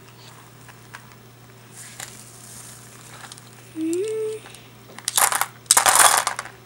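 Crinkling and rustling handling noise, with small clicks, then two loud crinkling bursts about five and six seconds in. A brief rising hum from a voice comes just before them.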